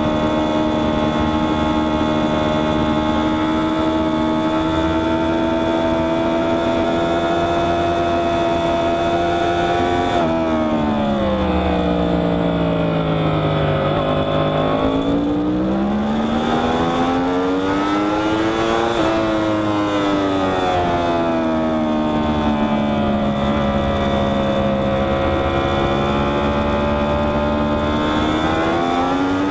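Yamaha R1's crossplane inline-four engine heard from onboard at speed, with wind rush. It holds high revs, falls away sharply about ten seconds in as the bike slows for a corner, climbs again on the exit with an abrupt drop like an upshift near twenty seconds, then eases down and rises once more near the end.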